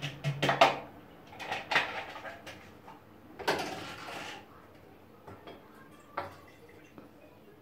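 Glass jars and bottles clinking and knocking against each other and a serving tray as drinks are set out on a kitchen counter, with a brief rushing noise about three and a half seconds in.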